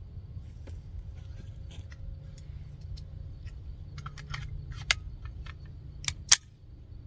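Small metallic clicks and rattles of a .22 pistol being loaded and handled. They grow busier about four seconds in, with a few sharp clacks near the end, the loudest about six seconds in.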